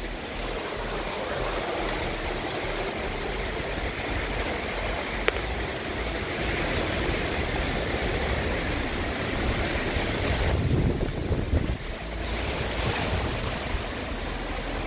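Hurricane wind blowing steadily through trees, with gusts buffeting the phone's microphone as a low rumble. A stronger gust comes about two-thirds of the way through.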